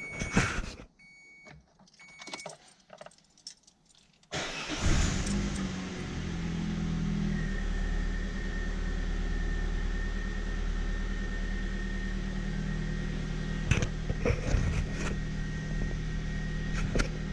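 Opel Agila's engine started on the key by its freshly rebuilt starter motor (new brushes). It catches about four seconds in, runs at a higher idle for a few seconds, then settles into a steady idle. Before it there are a few short beeps and clicks, and near the end keys jangle a few times.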